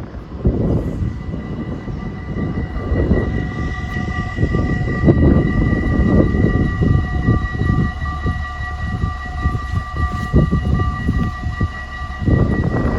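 Electronic warning bells of a Dutch AHOB automatic level crossing ringing steadily, as a couple of unbroken high tones, with wind gusting on the microphone underneath.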